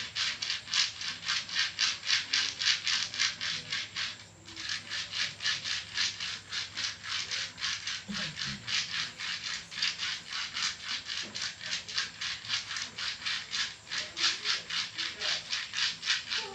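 Fast, rhythmic rubbing strokes of a traditional massage worked over the body, about four a second, with a brief pause about four seconds in.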